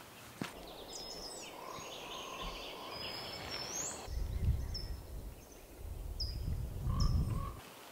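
Outdoor ambience with birds: a few short, high, upward-gliding chirps over a soft hiss. About halfway through, gusts of wind start buffeting the microphone with a low rumble.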